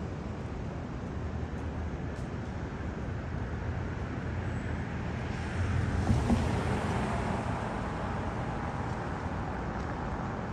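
City street traffic noise, with a motor vehicle passing close by that grows loudest about six seconds in and then fades.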